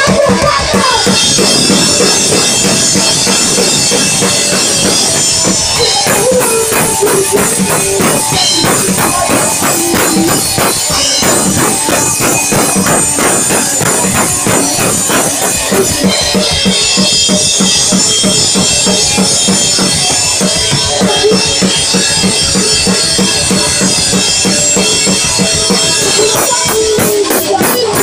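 Pop-punk band playing live through a stage PA: distorted electric guitars and fast drums, with a woman's singing voice coming in and out over them.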